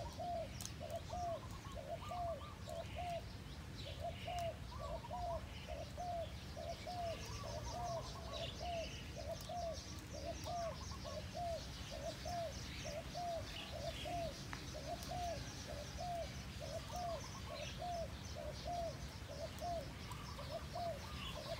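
Spotted doves cooing: a steady series of short arched coo notes, grouped in runs of three or four with brief pauses, while small birds chirp faintly higher up.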